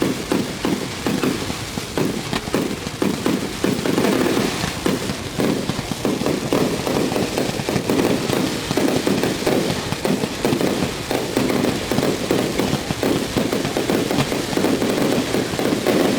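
Fireworks display in a rapid, continuous barrage of bangs, one burst running into the next with no pause.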